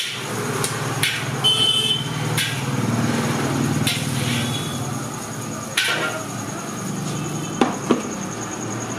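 Metal spatula knocking and scraping against a steel wok as stir-fried noodles are served onto a plate: a handful of sharp clacks, the loudest about six seconds in and two close together near the end, over a steady low hum.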